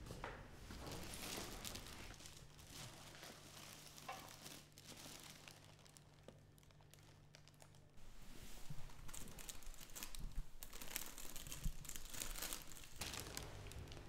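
Foil gift wrapping paper crinkling and rustling as a wrapped box is handled: a few faint rustles at first, then, about eight seconds in, a longer spell of continuous crinkling.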